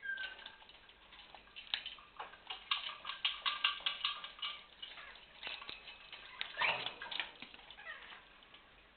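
African grey parrot working the wooden blocks of a hanging cage toy with its beak: irregular clicks and knocks of wood, densest a few seconds in.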